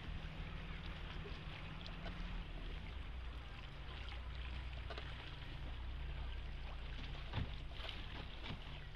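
Water lapping and splashing against a small Venetian rowing boat as it is rowed, over the low steady hum of a nearby vaporetto's diesel engine. A sharp knock comes about seven seconds in.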